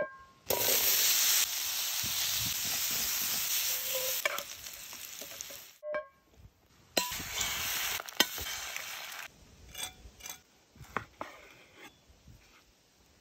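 Food sizzling in a hot cast iron skillet, in two long stretches broken by short gaps. A sharp metallic clink comes as the skillet is handled at the start, and another about six seconds in. Near the end, a few light knocks.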